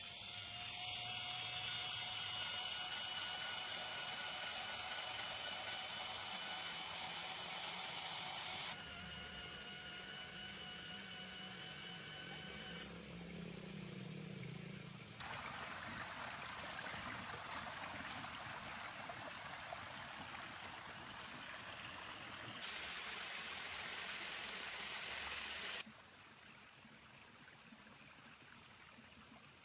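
Small electric water pump running in a miniature tank, with a thin steady whine during the first half, and water spraying and splashing as a steady hiss. The level jumps abruptly several times and drops for the last few seconds.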